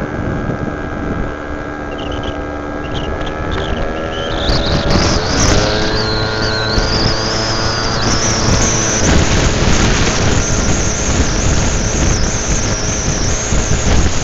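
Scooter engine pulling away and gathering speed. From about four seconds in, wind rush on the microphone rises over it and grows louder, with a high wavering whistle on top, as road speed builds.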